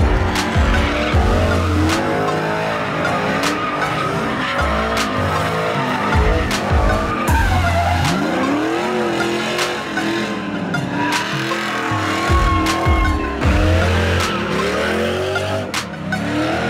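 Pickup trucks doing burnouts and donuts: tires squealing and engines revving up and down. Music with a heavy, stepping bass and a steady drum beat plays over it.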